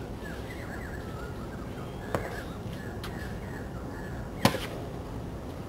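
Tennis ball struck by racket strings on an outdoor hard court: two sharp pops about two and a half seconds apart, the second louder, with a fainter knock between. Birds chirp faintly in the background.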